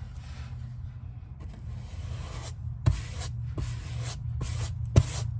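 Paintbrush strokes on a wall: a run of short, brushing swishes, with two sharp taps, the louder near the end, over a steady low hum.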